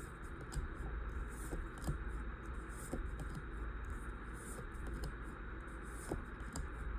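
Pokémon trading cards and their foil booster pack being handled: soft irregular rustling, scraping and small taps of card stock, over a low steady hum.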